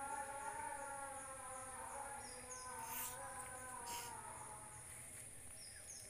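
Insects trilling with a steady high whine, over a wavering pitched tone that bends slowly up and down. Two sharp clicks come about three and four seconds in.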